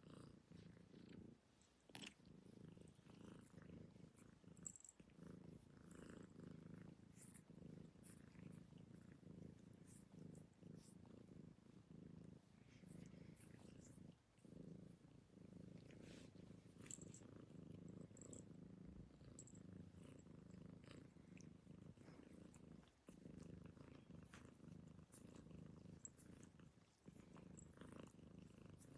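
Domestic cat purring, a low, even, pulsing purr, with a few brief breaks, while it is being stroked.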